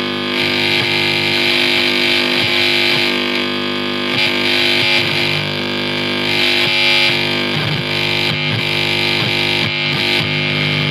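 Amplifier noise: a loud, steady distorted buzz and hum made of many held tones over a hiss.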